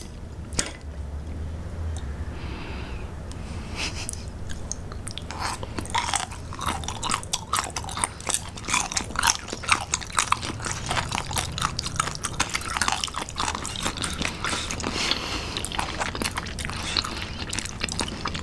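Two people chewing thick slices of raw gizzard shad sashimi, close to the microphone: crunchy, quiet and sparse at first, then dense crunching from about four seconds in.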